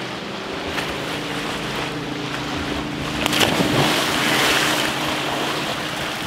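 Boat motor idling steadily, with a person splashing down into the lake about three seconds in.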